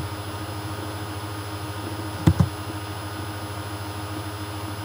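Steady low hum and hiss of background noise picked up by a computer's microphone, with one brief low thump a little after halfway.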